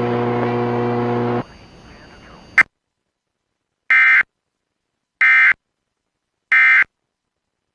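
Radio hum and static that stops about a second and a half in, a click, then three short, identical digital data bursts about a second and a quarter apart: the EAS end-of-message (EOM) tones that close a broadcast weather warning.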